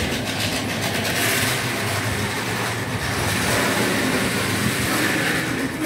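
Analog DC model steam tram locomotive and its wagons running along the layout track: a steady whirr and rumble of the small motor and wheels on the rails.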